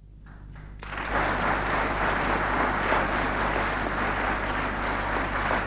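Audience applauding, starting softly and swelling to full, steady applause about a second in.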